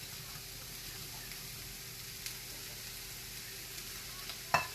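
Diced onion and bell peppers sizzling steadily in hot oil in a pot as they sauté. A single sharp knock near the end.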